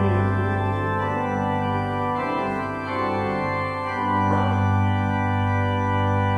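Organ playing sustained hymn chords as an interlude between sung verses, the chords changing about two seconds in and again a little past four seconds.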